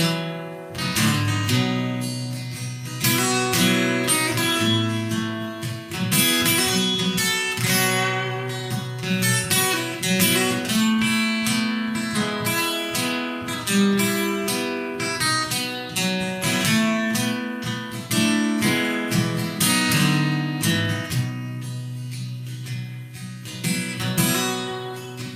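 Acoustic guitar strumming an instrumental break in a country song, steady strummed chords with ringing notes.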